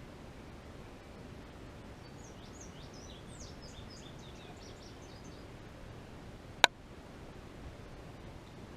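Outdoor background with a bird singing a quick run of short, high chirps for about three seconds, then a single sharp click about six and a half seconds in.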